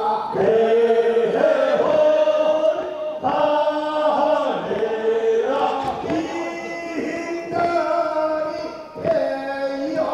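Men's voices chanting a Korean funeral bier song (sangyeo sori) together in long held phrases, each lasting a few seconds.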